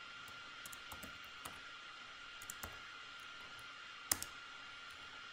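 Computer keyboard being typed on: a handful of scattered keystroke clicks, the loudest about four seconds in.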